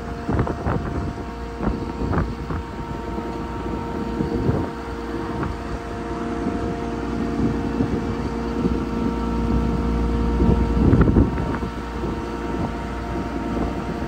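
Bucket truck's Cummins diesel running with the hydraulic pump driving the Altec boom as the upper boom unfolds: a steady hum with a few held tones. Wind gusts on the microphone now and then.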